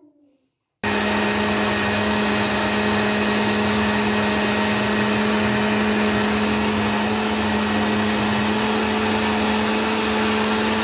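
Moulinex countertop blender motor running steadily at one constant pitch, puréeing greens with yogurt and water. It starts abruptly about a second in.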